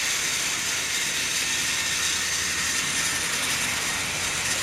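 Battery-powered Trackmaster Paxton toy diesel shunter running on plastic track: a steady, even whirr of its flat-type motor drive unit, gears and wheels.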